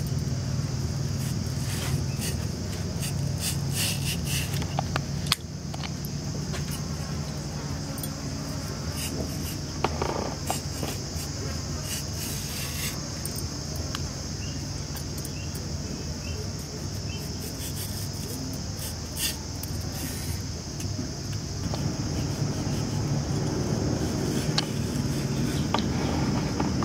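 Knife slicing through a thick aloe vera leaf, with soft scattered clicks and scrapes as the spiny edges are trimmed and the gel is cut free. A steady high-pitched insect chirring carries on behind it, with a low hum.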